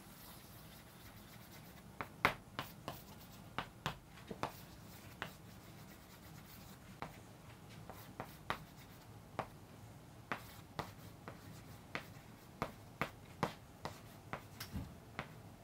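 Chalk writing on a chalkboard: a string of sharp, irregular taps and short scrapes as letters and numbers are written.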